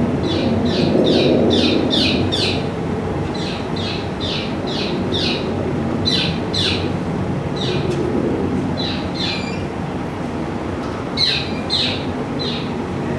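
Recorded bird chirping played back over a pair of loudspeakers: short chirps falling in pitch, two to three a second, in runs with brief gaps between them, over a steady low background noise.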